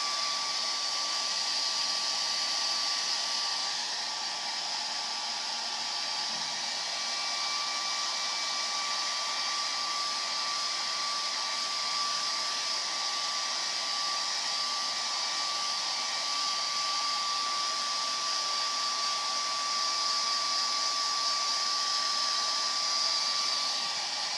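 Handheld hair dryer running steadily, a rush of blown air with a steady thin whine over it.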